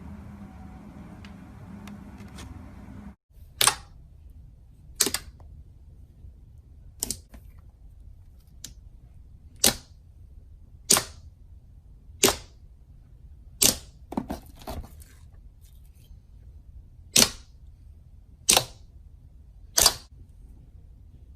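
Slime being pressed and poked, giving sharp, loud pops roughly every second and a half, with a few quicker smaller ones in the middle. A low steady hum for the first few seconds ends at a sudden cut before the pops begin.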